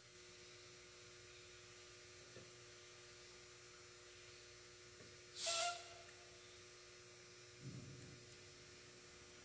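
Short hiss of air escaping from a car tyre's valve stem as a dial pressure gauge is pressed onto it for a pressure check, about halfway through. Under it runs a faint steady hum.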